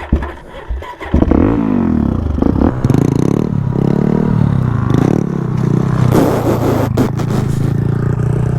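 Dirt bike being ridden: a few knocks, then from about a second in the motor runs loud, its pitch rising and falling again and again as the throttle opens and closes.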